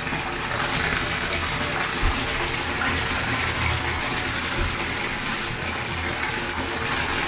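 Water running steadily from a tap, pouring into a filling bathtub.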